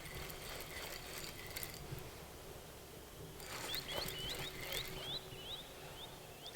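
A bird calling a quick series of about nine short, high chirps in the second half, over faint splashing and a few light knocks as a small pike is brought in by the boat.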